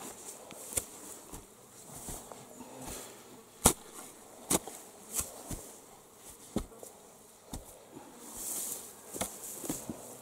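Steel spade jabbed into turf and soil around a freshly set wooden post, giving irregular sharp knocks and scrapes, the loudest a little under four seconds in.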